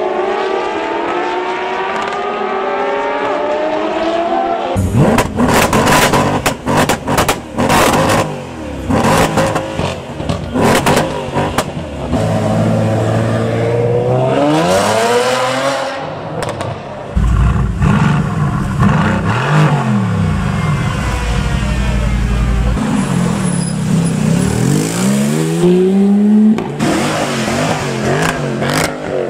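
A run of supercar engine clips. First a pair of Ferrari FXX K track cars accelerate with rising engine notes. After a cut about five seconds in, loud engines rev hard with a rapid series of sharp exhaust cracks, several rev sweeps up and down, and an engine note held steady for several seconds.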